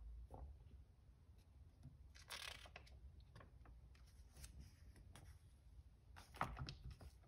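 Faint paper handling as magazine pages are turned by hand: a soft rustle about two seconds in, and a sharper crinkle and flap of a page near the end, which is the loudest moment.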